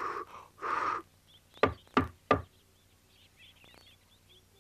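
Two breathy puffs of blowing, then three sharp knocks on a wooden door in quick succession, followed by faint bird chirps.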